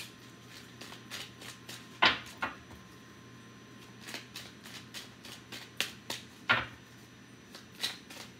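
A deck of tarot cards being shuffled by hand: a run of soft card taps and riffles with a few sharper slaps, the loudest about two seconds in and again past six seconds.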